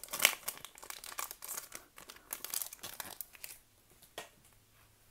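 A foil Pokémon card booster pack crinkling and tearing as it is ripped open by hand, in a quick run of rustles that stops after about three and a half seconds. A single sharp tick follows a little later as the cards are handled.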